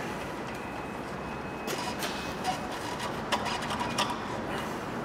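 Light clicks and knocks of a new front lower track control arm (wishbone) being handled and shifted into its mounts, over steady workshop background noise.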